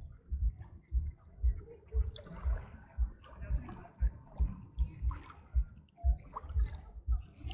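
Small river waves on the Neva lapping and splashing, with a low thud about twice a second and a trickling wash over the top.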